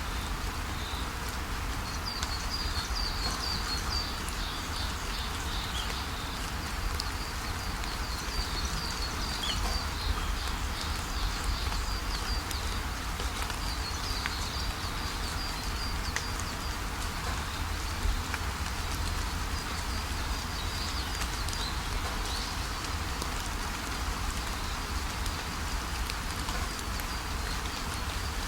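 Steady rushing of a waterfall, with small birds chirping in high, quick trills over it on and off.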